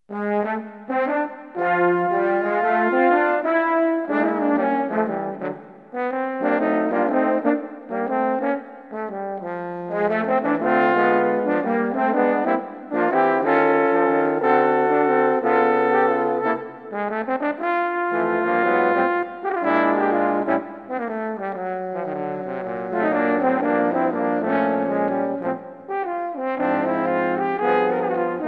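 Brass band music: several brass instruments playing a tune in chords over a moving low bass line, starting abruptly out of silence.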